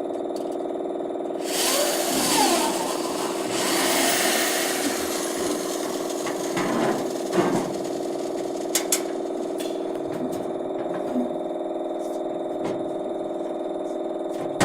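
CNC lathe running with a steady motor hum. Two loud hissing bursts come in the first five seconds, and a few sharp clicks come about eight to nine seconds in.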